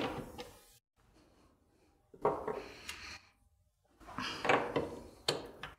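Metal lathe spindle coasting to a stop, then two short spells of metal clunks, scrapes and clicks as the cutting-tool holder is taken off the tool post and another tool fitted.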